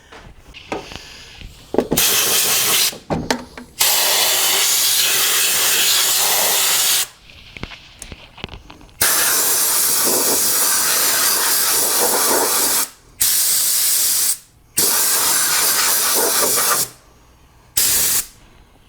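Compressed-air blow gun hissing in six sharp-edged bursts, the longest about four seconds, blowing dirt out of the spark plug wells before the plugs come out.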